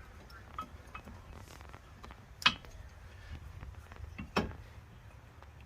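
New brake pad, metal backing plate, being seated in the caliper bracket against the disc, with light metallic clicks and two sharp knocks, one about halfway through and one later.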